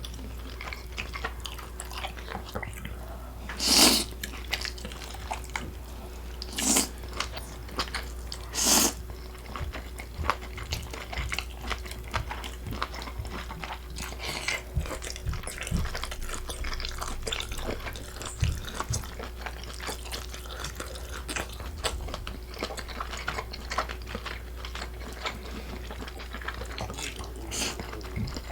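Close-miked eating: chewing, crunching and wet mouth smacks, many small clicks, with three louder short bursts about 4, 7 and 9 seconds in.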